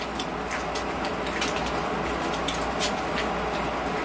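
Pringles potato chips being chewed: irregular, crisp crunches scattered through the whole stretch, over a low steady hum.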